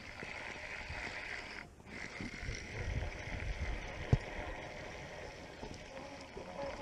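Spinning reel being cranked to retrieve line, a steady whir that breaks off briefly about two seconds in, with a sharp click about four seconds in.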